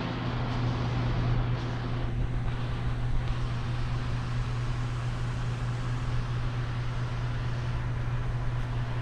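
Steady low mechanical hum with an even rushing noise over it.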